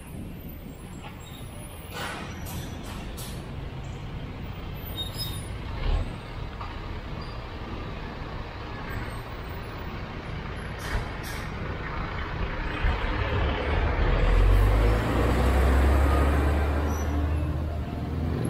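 A motor vehicle running, its low engine hum and rushing noise building up about two-thirds of the way through, with a few knocks earlier on.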